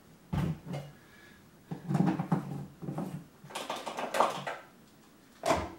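Irregular handling noises around a lawn mower: knocks, scrapes and rustling as parts are handled and wiped with a rag, with a sharp knock near the end.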